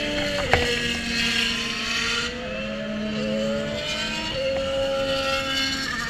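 Race cars going past on the circuit, their high-revving engine notes sliding down and up in pitch as they pass and accelerate. A brief sharp knock about half a second in.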